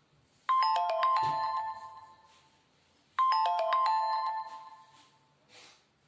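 Preloaded Nokia Lumia 520 phone tone: a quick falling run of bell-like chime notes that rings out and fades, played twice about three seconds apart.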